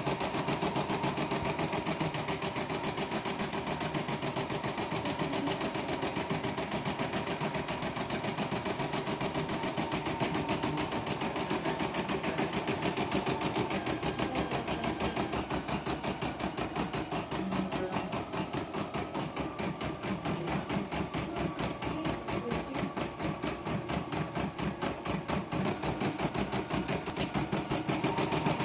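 CNY E960 computerized embroidery machine stitching a test lettering design, its needle running at a fast, even stitch rhythm as the hoop carriage moves the fabric under it.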